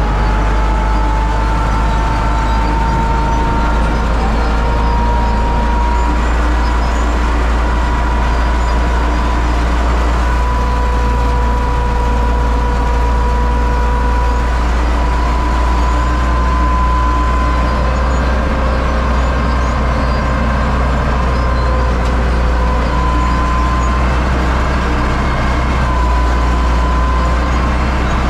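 U650 tractor's four-cylinder diesel engine running steadily with a deep rumble, a thin whine drifting slightly in pitch over it.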